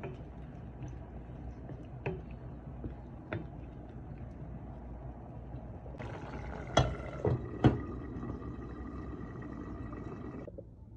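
Curry simmering in a steel pot, a steady bubbling with a few spoon knocks against the pot. About two-thirds of the way through, a glass pot lid clinks sharply against the pot three times; the bubbling stops suddenly near the end.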